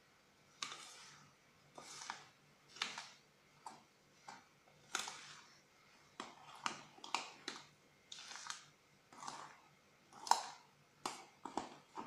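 Metal spoon stirring thick, grainy semolina batter in a glass bowl: a run of short scraping strokes with sharper clicks of the spoon against the bowl. The strokes come closer together in the second half.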